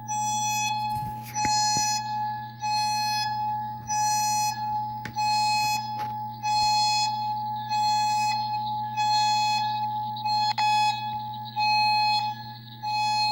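Warning siren sounding an intermittent alert: an electronic tone at one steady pitch, pulsing on and off a little faster than once a second, over a low steady hum.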